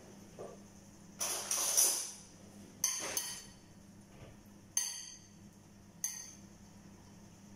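Metal spoon clinking against a ceramic bowl as a chopped tomato, cucumber and carrot salad is stirred. A short clatter about a second in, then a few single sharp, ringing clinks a second or so apart.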